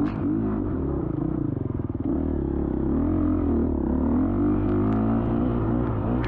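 Dirt bike engine revving up and down on and off the throttle. About a second in, it drops briefly to low, rough pulsing before picking up again.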